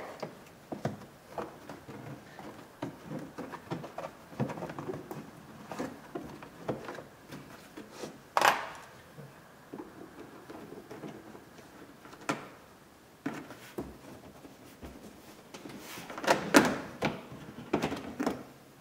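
Hand work on a Honda Accord's trunk trim: a flat-blade screwdriver prying plastic push-pin clips and the trim panel being pulled back, giving scattered clicks, taps and scrapes. The loudest clatters come about eight seconds in and again around sixteen seconds.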